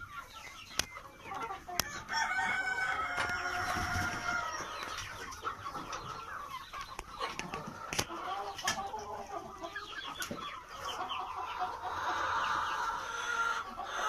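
A small flock of Borkovskaya Barvistaya chickens clucking, with a long crow about two seconds in and more calls near the end. A few sharp taps cut through.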